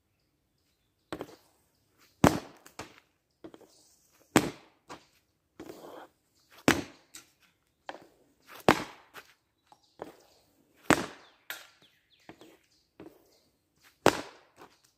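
Hockey shots: a stick cracking pucks off a plastic shooting pad, about six sharp hits spaced roughly two seconds apart, each led by lighter clicks of the blade on the pad as the puck is drawn back.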